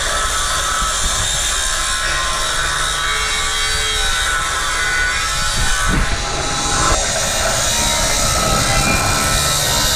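Angle grinder with a thin cutting disc cutting through steel plate, a steady grinding whine; the sound changes about six to seven seconds in.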